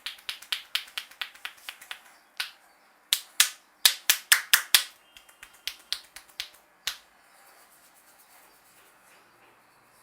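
Sharp snapping clicks from a barber's hands and fingers in a head massage. There is a fast, even run of about six a second at first, then from about two seconds in a sparser, louder series that stops about seven seconds in.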